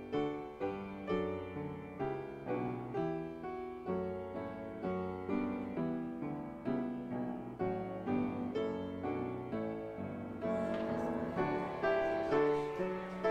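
Piano playing a slow, hymn-like postlude, with chords struck about twice a second and left to ring. From about ten seconds in the playing grows brighter and a little louder.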